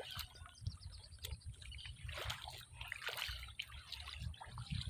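Faint trickling and sloshing of water in a flooded, muddy rice paddy, with scattered soft splashes over a low steady rumble.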